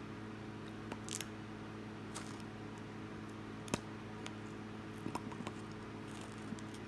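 Quiet room tone: a steady low electrical hum with a few faint, short clicks and taps scattered through it.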